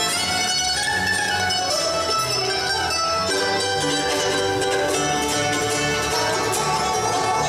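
Live bluegrass instrumental: a mandolin picks the lead over strummed acoustic guitars, with the fiddle bowing at the start.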